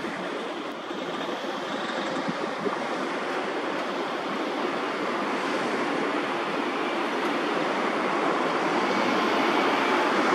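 Road traffic: cars driving past close by, a steady rush of tyre and engine noise that grows louder toward the end.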